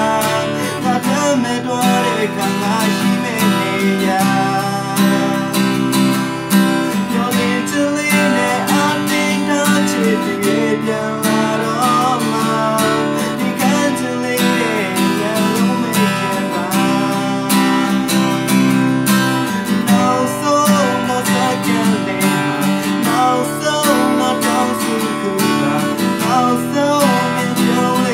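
Steel-string acoustic guitar strummed in a steady chord pattern, with a man singing over it.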